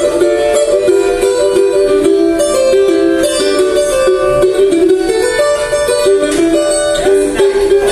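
A cavaquinho being played continuously, a run of plucked notes and chords.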